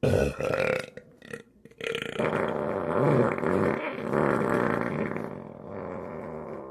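A person burping: a loud belch right at the start and a couple of short ones, then one long drawn-out burp of about five seconds that wavers in pitch and fades near the end.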